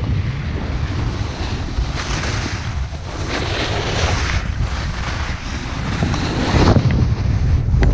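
Wind buffeting an action-camera microphone during a downhill snowboard run, a constant low rumble. The hiss of snowboard edges scraping over groomed snow swells up several times as the riders carve turns.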